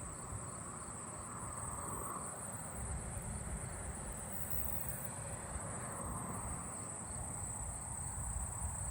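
Singing insects, crickets and katydids, making a steady high-pitched trill that never breaks, over a low rumble.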